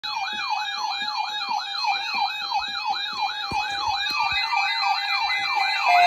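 Electronic siren wailing, its pitch sweeping rapidly up and down about three times a second.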